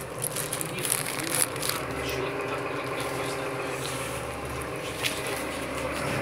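City bus engine running steadily while the bus drives, heard from inside the passenger cabin, with a few light knocks and rattles.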